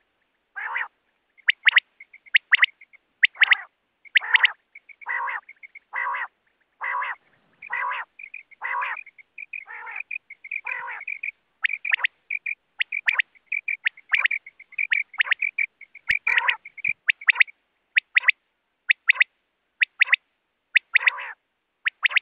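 Common quail calling: short, sharp, high notes repeated throughout, mixed with lower, harsher calls about once a second through the first half and quicker runs of high notes in the second half.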